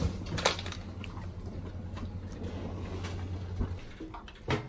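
A metal muffin tray knocking once, sharply, against the oven rack as it is slid into the oven near the end. Before that there is a steady low hum that stops shortly before the knock, with a couple of light clicks near the start.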